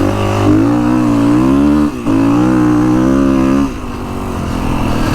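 Kawasaki KX450X's single-cylinder four-stroke engine running under throttle at a steady pitch while riding, with a brief dip about two seconds in and an easing off about a second and a half before the end.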